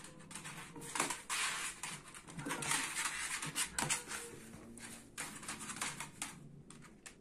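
A small terrier and a cat play-fighting on a hard floor: a rapid flurry of scuffles, paw scrabbles and bumps, densest in the first four seconds, with a few short whines from the dog among them.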